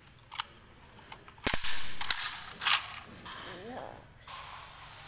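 Hard plastic toy mouse clicking and rattling as a baby monkey handles it, with a loud sharp snap about one and a half seconds in and another click a second later.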